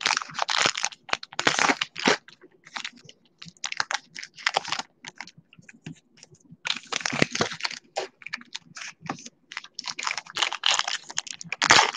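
Foil wrapper of a 2020 Topps Gypsy Queen baseball card pack crinkling and tearing as it is worked open by hand, in irregular bursts with short pauses between them.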